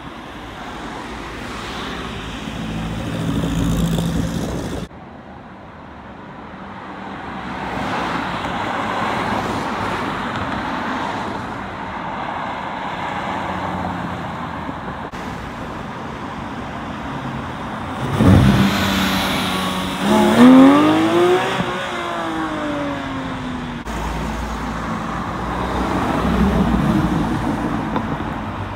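Sports cars driving past and accelerating away, heard in a run of short clips, among them a Ferrari and a blue BMW M3. About two-thirds of the way through, one engine revs hard, its pitch sweeping up and down through a gear change; this is the loudest moment.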